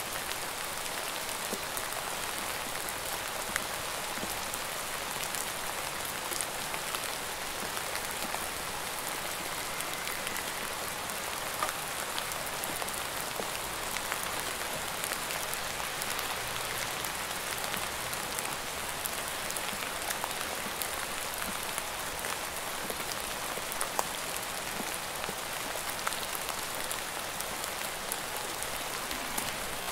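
Steady rain falling: an even hiss with scattered sharper drop ticks throughout.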